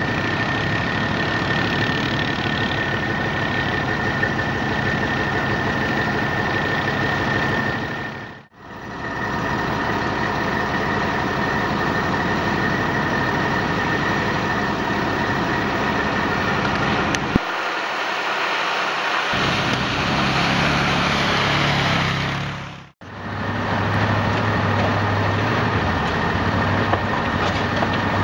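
Quad ATV engines running under load as the machines are ridden through mud and muddy water. The sound drops out briefly twice.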